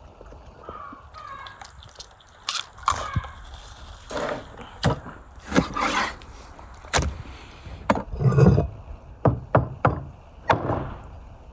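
Raw goose being cut up on a wooden cutting board: knife cuts, then a cleaver chopping through the carcass, giving sharp knocks on the board mixed with bone cracking, starting about two and a half seconds in.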